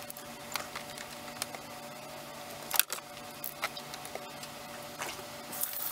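Clicks and rattles of a clamp meter and its test leads being handled and clamped onto a supply wire of an electric tankless water heater, the sharpest click about three seconds in, over a faint steady hum. A hiss starts near the end.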